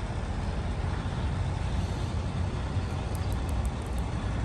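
Semi-truck diesel engine idling with a steady low rumble.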